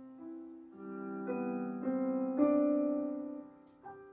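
Background piano music: a slow phrase of struck notes and chords left to ring, building to its loudest chord about two and a half seconds in, then dying away.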